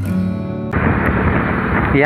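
Background guitar music holding a chord, cut off about two thirds of a second in by the steady noise of a moving vehicle on the road.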